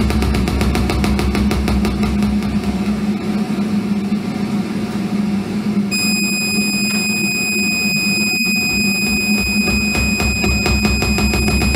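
Live electronic noise music: a loud, dense, fast-pulsing noisy texture over a steady low hum. A high steady whine with overtones comes in about halfway through and holds, with a momentary cutout about two seconds later.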